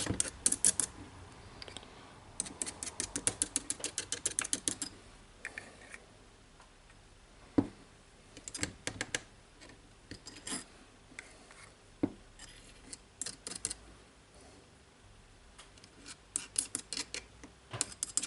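Runs of quick, light clicks and a few single sharp taps from small jigsaw parts being handled and fitted by hand during reassembly.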